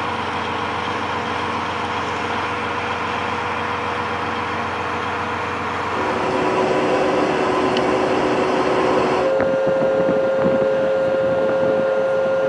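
M1 Abrams tank engines running: a steady noise with a constant whine, which shifts abruptly in pitch and level about six and nine seconds in.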